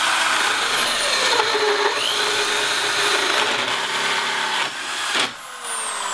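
Electric drill driving a 2 1/8-inch hole saw through a pine board, cutting steadily for about five seconds. The saw then breaks free of the wood and the drill runs on with a falling pitch.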